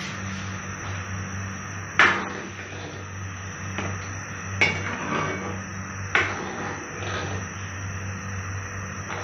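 Metal ladle clinking against the side of a metal kadai as rasam is stirred: three sharp clinks about two seconds apart, with a few lighter taps between, over a steady low hum.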